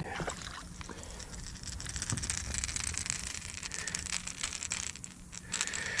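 Rapid clicking and rattling while a small white bass is landed on a boat, busiest through the middle and easing off near the end.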